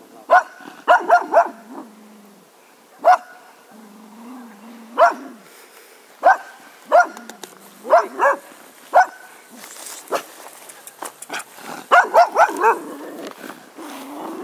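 English Cocker Spaniel giving grumpy barks: short, sharp barks, some single and some in quick runs of three or four, with low wavering grumbles between them.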